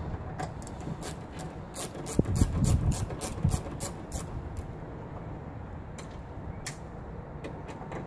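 Hand ratchet clicking in quick strokes, about five a second for a couple of seconds, then a few single clicks, as the Torx screws at the door latch that hold the door lock actuator are turned out.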